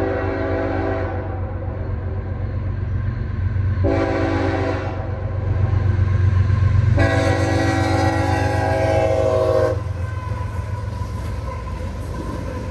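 Horn of a CSX GE ES44AH diesel locomotive sounding the grade-crossing signal: a long blast ending about a second in, a short blast about four seconds in, then a long blast of nearly three seconds. A steady low rumble of the locomotives' diesel engines runs underneath.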